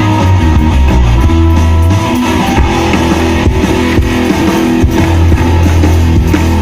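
Live band playing the instrumental opening of a rock and roll song: guitar over a strong bass line, with no singing.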